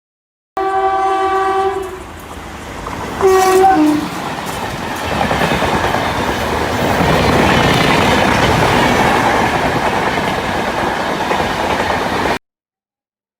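Dubbed railway sound effect: a train horn blows a long blast, then a short second blast that drops in pitch at its end. The running noise of a train on the rails then builds and stays loud until it cuts off suddenly.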